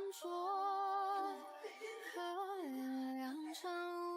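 A high voice humming or singing long held notes that slide from one pitch to the next.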